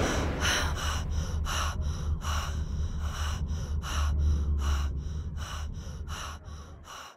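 A woman panting in distress: quick, shaky breaths, about two to three a second, fading toward the end, over a steady low hum.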